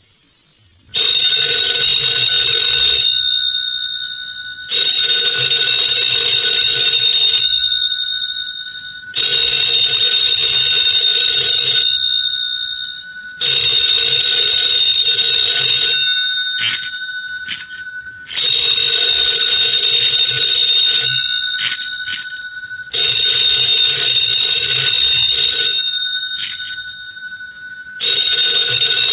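A bell ringing in repeated bursts, each about two and a half seconds long and fading a little before a pause of about two seconds, seven times over. A few sharp clicks fall in the pauses midway through.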